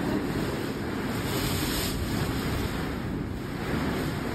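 Hurricane wind and rain outside the house, a steady rushing noise that swells and eases slightly.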